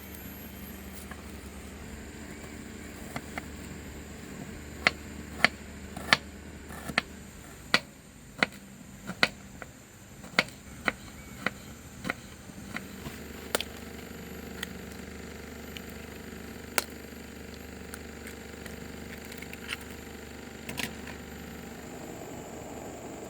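A run of sharp, short knocks, about one and a half a second for several seconds, then a few scattered ones, over a steady low hum.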